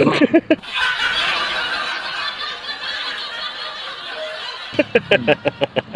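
A man laughing: a long breathy, wheezing laugh, then a quick run of short "ha-ha" pulses near the end.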